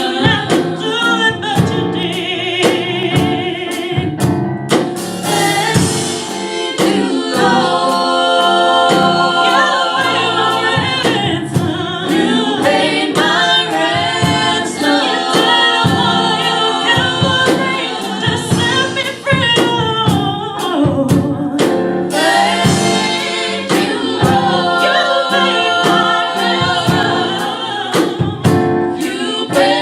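Gospel vocal group singing in harmony, choir-style, with sharp percussive beats running through the music.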